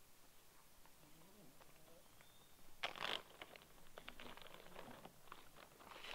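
Near silence, then almost three seconds in a sudden rustle followed by a run of small crackling, crinkling ticks.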